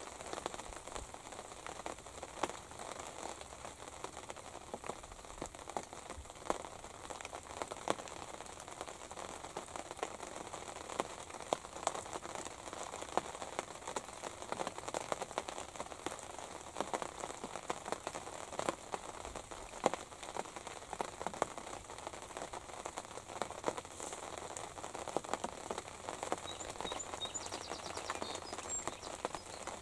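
Light rain pattering steadily on the fabric roof of a hunting ground blind, many small irregular taps. A few faint high chirps near the end.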